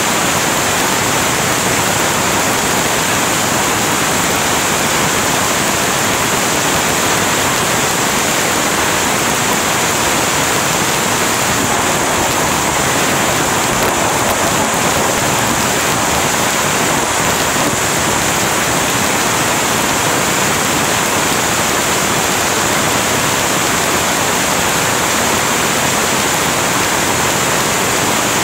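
Heavy rain pouring steadily: a dense, even hiss of downpour that does not let up.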